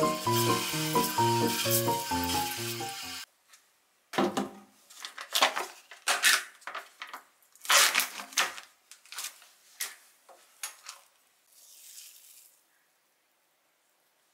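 A faucet sprayer hisses into a stainless steel sink under a short burst of music, both cutting off suddenly about three seconds in. Then come irregular plastic clicks and crackles as a lid is pried off a plastic Greek yogurt tub and the tub is handled.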